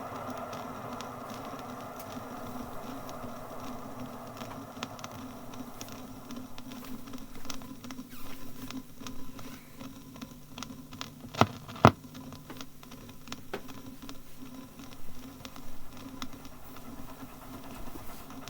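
Scattered clicks and crackle from an old sound-archive disc, with two sharp loud clicks close together about twelve seconds in. Under them is a faint railway background with a low hum, its higher part dying away over the first few seconds.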